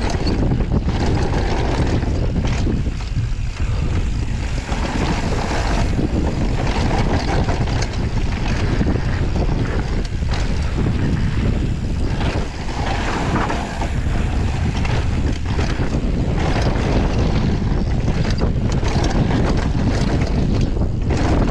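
Wind rushing over the microphone of a downhill mountain bike (Scott Gambler) descending a dirt and rock trail at speed, with the tyres rumbling on the ground and the bike rattling. Frequent sharp knocks as the bike hits rocks and bumps.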